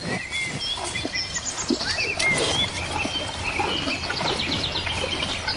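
Several small birds chirping, with many short, high overlapping calls and quick runs of notes over a light rustling.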